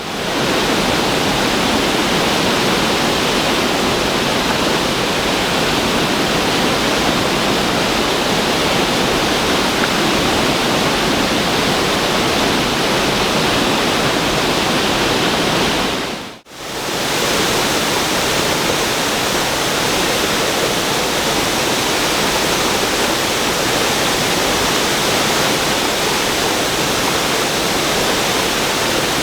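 Floodwater rushing over a lake's overflow spillway: a loud, steady roar of falling water from high spring rains. It drops out and comes straight back once, about halfway through.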